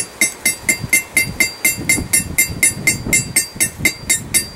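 Hand hammer striking hot steel on an anvil in quick, light, evenly spaced blows, about four a second, each with a bright metallic ring, as detail is worked into the tail fin of a forged trout bottle opener.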